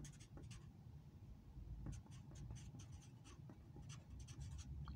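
Faint scratching of a marker pen writing on a sheet of paper, a run of short, irregular pen strokes.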